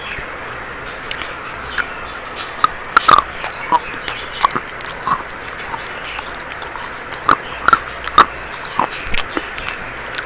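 Dry chalk being bitten and chewed: irregular sharp crunches and snaps, some in quick clusters, over a steady hiss.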